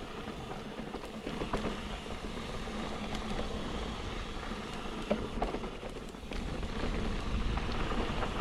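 Mountain bike rolling down a steep trail of soft, loamy dirt, its tyres sliding and scrabbling through the loose soil with scattered small knocks and rattles, over a low wind rumble on the microphone.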